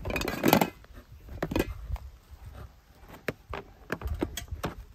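Metal camp cookware and utensils clinking and knocking as hands rummage through a plastic storage box, with a louder clatter in the first second, then scattered light clinks.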